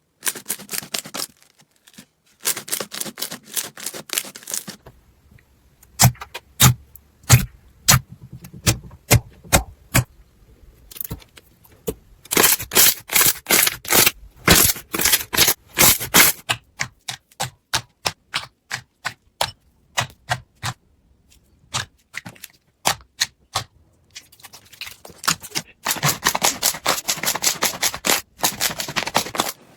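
Slime being squeezed and poked by hand, making rapid sharp clicks and pops in bursts with short pauses between.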